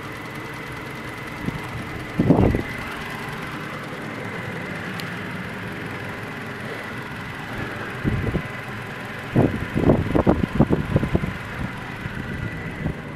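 Toyota Tacoma pickup's engine idling steadily, with a thin high tone running over it. A few louder knocks and thumps break in about two seconds in, and again in a cluster from about eight to eleven seconds in.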